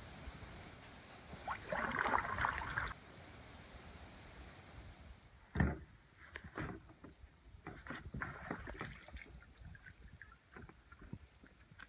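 Water splashing from a canoe paddle stroke, then a loud thump against the canoe hull about five and a half seconds in, followed by scattered knocks and scrapes as someone shifts and climbs about in the canoe. An insect chirps steadily in short, high, even pulses through the second half.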